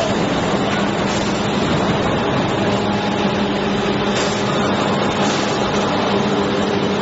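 Plastic sheet extrusion line running: a steady industrial drone with a constant low hum and a dense noise over it.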